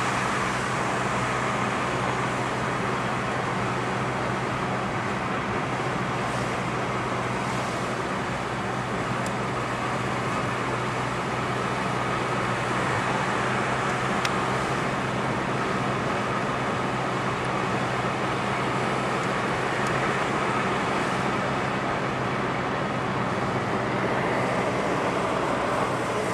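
A car driving steadily, heard from inside the cabin: an even engine hum under steady tyre and road noise.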